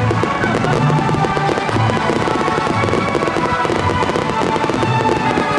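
Fireworks bursting one after another with dense crackling, over music playing along with the show.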